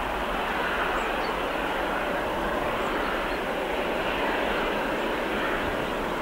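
Airbus A330-300's Rolls-Royce Trent 700 turbofan engines at takeoff thrust, a steady jet noise as the airliner rotates and climbs away.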